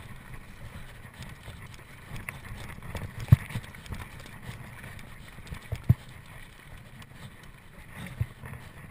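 Mountain bike riding over a cross-country trail: a steady low rumble with three sharp knocks as the bike hits bumps, the loudest about three seconds in.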